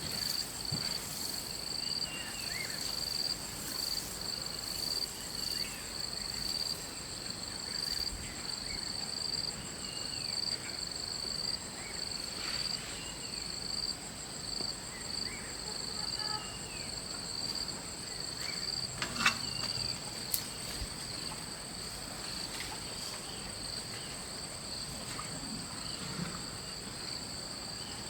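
Insects shrilling without a break in two steady high-pitched tones, with short bird chirps scattered over them. A sharp knock about two-thirds of the way through, then a lighter click a second later.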